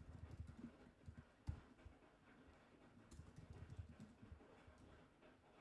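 Faint typing on a computer keyboard: irregular light keystrokes, with one louder knock about one and a half seconds in.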